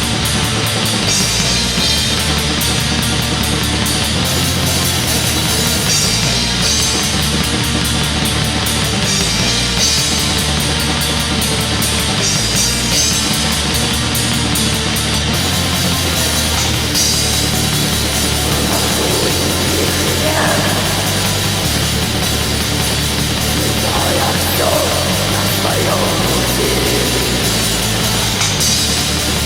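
Black metal music: dense distorted guitars over steady drum-kit playing, a loud, unbroken wall of sound.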